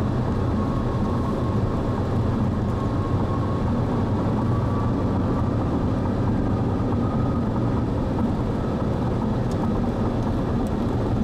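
Steady road and engine noise heard from inside a car driving along a highway.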